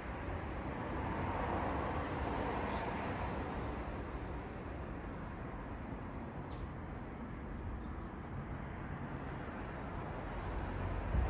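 Steady outdoor background rumble and hiss that swells about a second or two in and slowly eases off, with no clear bird calls standing out.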